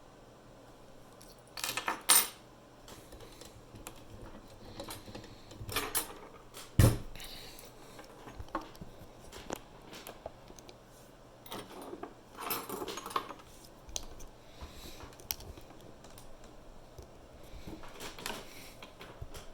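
Small metal clicks and clinks of a lock and its parts being handled on a hard surface, in scattered short bursts, with a heavier knock about seven seconds in.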